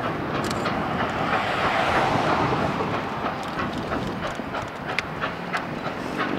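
Nickel Plate Road 765, a 2-8-4 Berkshire steam locomotive, approaching at the head of a passenger train: a steady rumble with scattered, irregular clicks of wheels over rail joints and switches.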